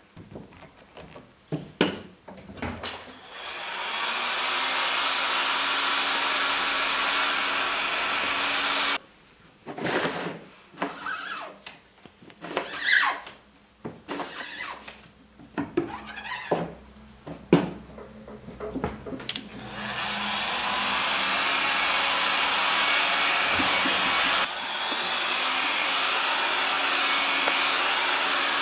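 Squeegee strokes scraping ink across a screen-printing screen, some with short squeaks, alternating with two long stretches of a hot-air blower running steadily to dry the printed ink between colours.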